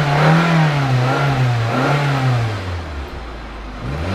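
2005 Hyundai Elantra's four-cylinder engine being revved, its pitch swinging up and down, falling back to idle about three seconds in, then climbing again near the end. The crankcase is overfilled with about two to three quarts of oil, so the engine is burning oil and smoking heavily, yet it runs without knocking.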